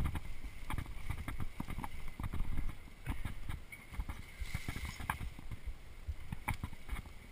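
Mountain bike rattling and bumping over a rough dirt singletrack: a dense run of low thuds and clatter with scattered sharp clicks.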